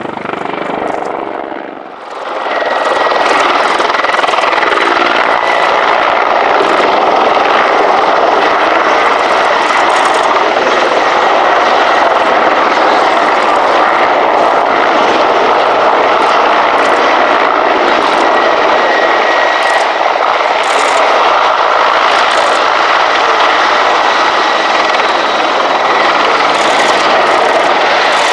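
Mi-24/35 Hind attack helicopter flying a low display pass: its turbines and rotor make a loud, steady noise with a thin high whine running through it. The sound dips briefly, then rises to full loudness about two seconds in.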